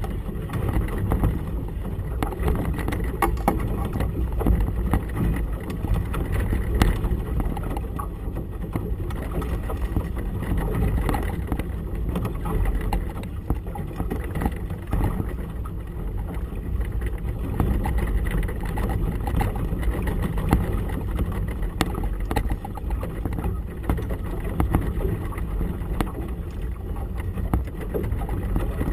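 Steady low rumble of gusty wind and choppy water around a small motorboat, with many small knocks and slaps throughout.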